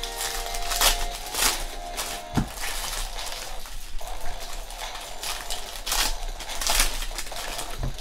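Foil wrappers of Prizm football card packs being torn open and crumpled by hand: irregular crinkling and rustling with sharp crackles, loudest about a second in and again near the end.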